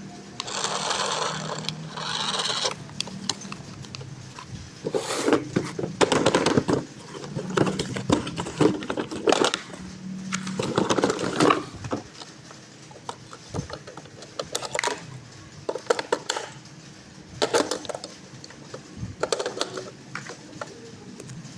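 Small electric motor and plastic gears of a remote-control toy car whirring in short bursts, stopping and starting, with clicks and scraping of the toy being handled.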